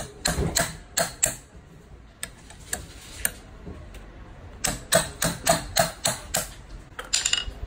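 Plastic-faced mallet striking the end of a long steel hex key in repeated sharp taps, to break loose the big bolt under the swingarm of an e-scooter stem. A few taps come at the start, then from about five seconds in a steady run of about seven, roughly three a second, and a quick flurry near the end.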